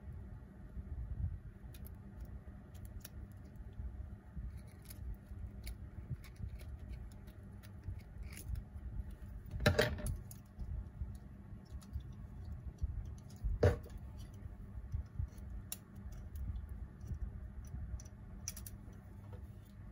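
Small clicks and taps of a plastic model kit being handled, with metal tweezers touching the plastic parts. Two louder sharp knocks come about halfway through and again about four seconds later.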